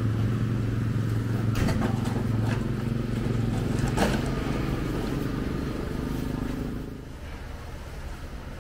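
A wheeled steel-frame sign stand rolling over concrete, with a few metal clanks, the loudest about four seconds in. A steady low engine-like hum runs under it and fades near the end.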